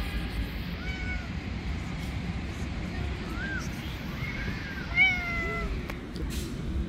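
Kittens meowing: several short, high mews, the loudest about five seconds in, over a steady low rumble.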